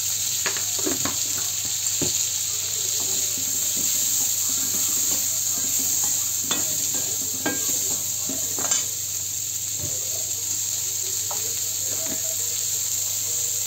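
Green peas frying with onion and ginger-garlic spice paste in a steel kadhai, sizzling steadily while a perforated steel slotted spoon stirs them, scraping and clinking against the pan now and then; the sharpest clink comes about nine seconds in.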